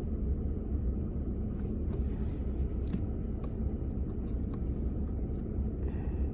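Steady low rumble of a 2021 Ford F-150 heard inside its cab, with a few faint clicks.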